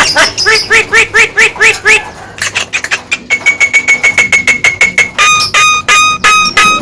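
Javan myna (jalak kebo) calling in full voice: rapid strings of repeated notes, about five a second. The pattern changes twice, from buzzy notes to a steady held whistle under quick pulses in the middle, then to clear ringing notes.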